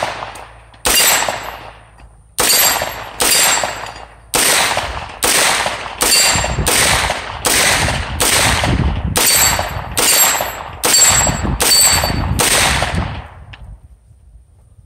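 A Foxtrot Mike FM-9 9mm AR pistol firing a string of about fifteen semi-automatic shots, slower at first, then a steady shot every second or less, stopping about 13 seconds in. The gun cycles through the whole string without a stoppage, which the shooter calls perfect, flawless.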